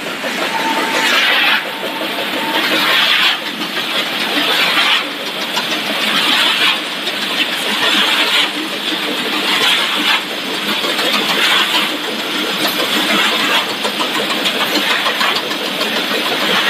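Snack production line machinery running: a loud, steady mechanical hiss and rumble whose level shifts in steps about every couple of seconds. Two faint short beeps sound in the first few seconds.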